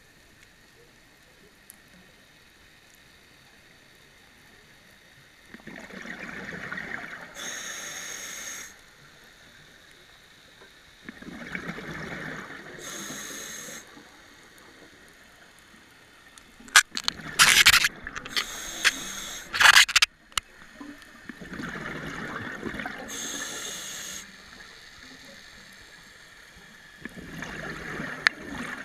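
Scuba diver breathing through a regulator: rushing, gurgling bubble noise and a shorter high regulator hiss come in cycles about every five seconds, repeated about five times. A cluster of sharp clicks and rattles sounds near the middle.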